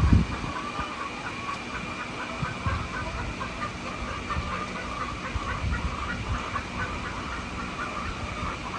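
A flock of hens calling, with many short calls overlapping. A thump at the start, and a few soft knocks later.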